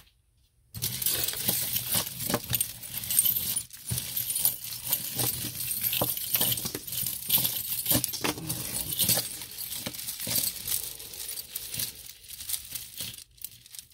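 A tangled bunch of beaded necklaces and metal chains jangling and clinking as it is lifted and handled. It starts about a second in and runs as a steady stream of small clicks and jingles.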